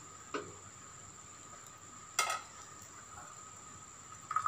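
Cookware clanking: a metal pot knocking against a steel bowl and the stovetop three times, the loudest about two seconds in, as the pot is lifted and tipped to pour syrup into the bowl.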